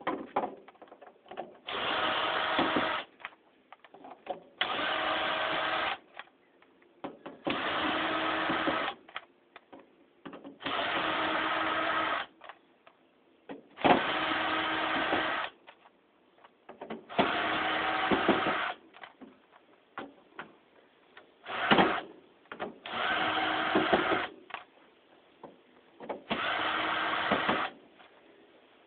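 A cordless power screwdriver runs in about nine short bursts of a second or two at a steady pitch, backing steel screws out of ceiling-fan blades. Small clicks and knocks of the screws and parts being handled come between the bursts.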